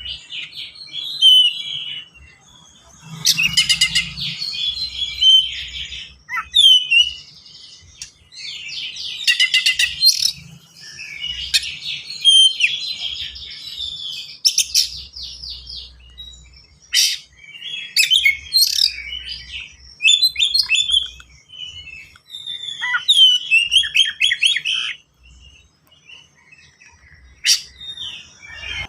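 Oriental magpie-robin (kacer) singing a fast, dense song of rapid trills and sharp whistled notes, full of phrases mimicked from other birds. It comes in bursts of a few seconds with short pauses between them.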